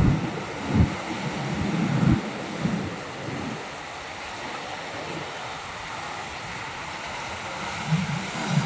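Ocean surf washing over a rocky shore, a steady hiss, with wind buffeting the microphone in low gusts during the first few seconds and again near the end.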